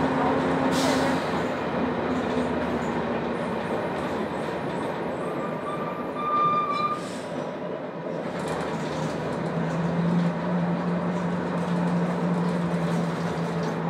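Jelcz 120M city bus under way with its manual gearbox, heard from inside the passenger cabin: a steady engine drone over road rumble. Around the middle the engine note drops away, with a brief high squeal, then the engine pulls again on a steady lower note.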